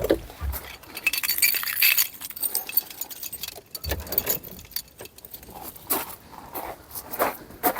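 Metallic jangling and clinking for about a second, then scattered knocks and two dull thumps.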